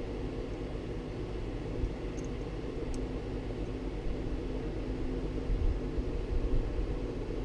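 Steady mechanical hum and hiss of room background noise, with a couple of faint small clicks about two and three seconds in.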